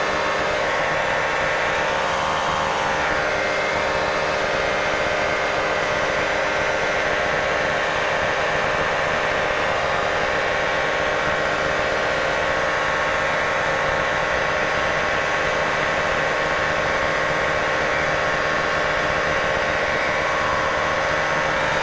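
Light aircraft's piston engine and propeller droning steadily at climb power, heard from inside the cockpit.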